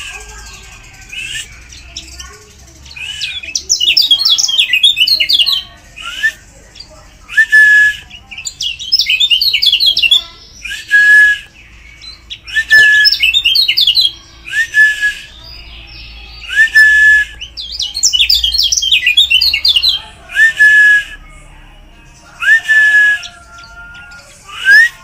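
Kecial kuning (a yellow white-eye) singing on a bird-lure recording: bursts of rapid, busy twittering alternate with short whistles that rise and then hold level, repeating about every two seconds.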